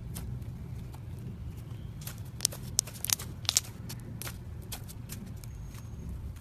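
Thick slime squeezed and folded in the hand, giving crackling pops and clicks as trapped air bursts. The pops come thickest and loudest a little past the middle, over a steady low background rumble.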